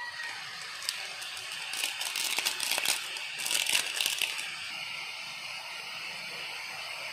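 Chayote strips sizzling in hot oil in a wok, a steady hiss. Two spells of crinkling, about two and three and a half seconds in, come from a foil seasoning sachet being shaken over the pan.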